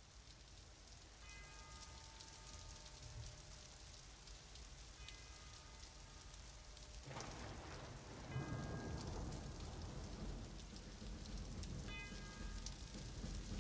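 Faint, steady rain-like hiss that grows fuller about halfway through. Soft ringing chime-like tones sound four times, about every three and a half seconds.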